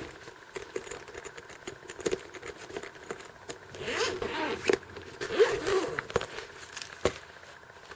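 Zipper on a padded electronics accessory case being pulled, in two drawn-out runs about halfway through, among light handling clicks and rustles.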